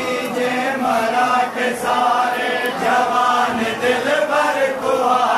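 A group of men chanting together in long, drawn-out notes: a Shia Muharram mourning chant (noha) sung by the mourners.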